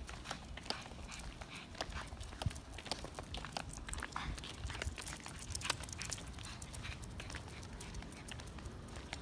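Footsteps and light taps on pavement while walking a dog on a leash: irregular sharp clicks, several a second, over a low background hum.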